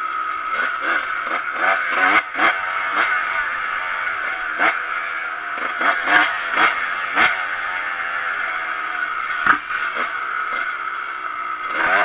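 Kawasaki KX125 two-stroke single-cylinder engine being ridden, its pitch rising and falling as the throttle is worked, with short clattering knocks throughout.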